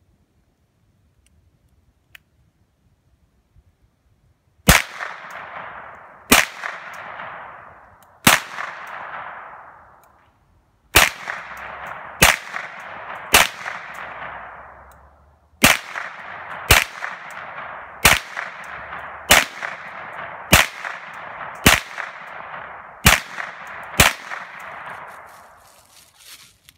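Fourteen gunshots from a shoulder-fired long gun, spaced about one to two and a half seconds apart with two short pauses, each followed by a rolling echo that dies away over a second or two.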